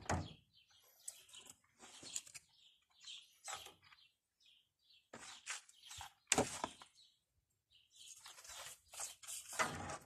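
Short irregular knocks, scrapes and splashes as a rusty adze head is handled in a metal tin of electrolysis water and a wire clip is fitted to the tray, loudest about six seconds in and again near the end, with birds chirping.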